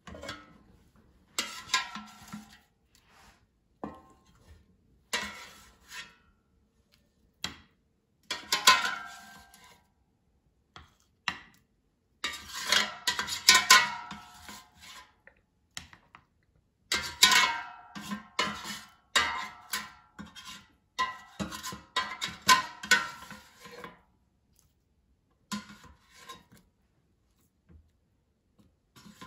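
White plastic spatula scraping and scooping roasted cherry tomatoes out of a nonstick air fryer basket, in irregular bursts of scraping and knocking against the basket and plate, busiest in the middle and thinning out near the end.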